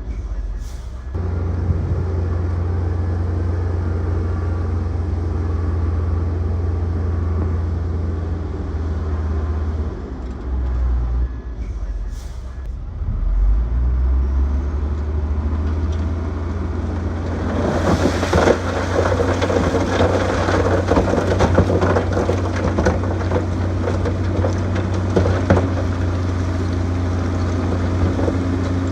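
Diesel engine of heavy earthmoving machinery running steadily. About two thirds of the way through, a dense rattling and crackling joins it, typical of steel tracks and pushed dirt and rock.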